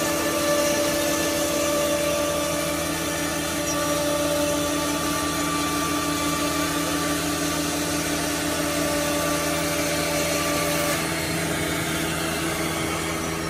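Holztek four-head CNC nesting router milling a door-panel groove into melamine-faced particleboard, its spindle and dust extraction running: a steady machine drone with a held whine. About eleven seconds in part of the whine stops, and near the end a high whine falls in pitch.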